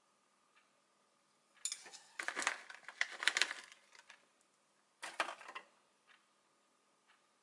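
Crackly rustling and light clicks of shredded cheese being handled and dropped into a hollowed-out kabocha squash. There is a short burst about 2 s in, a denser one lasting about 2 s, and a last brief one just after 5 s.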